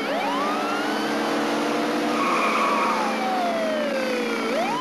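Police car siren wailing: it rises quickly, slides slowly down and starts rising again near the end, over a car engine running hard. There is a short tyre squeal about halfway through.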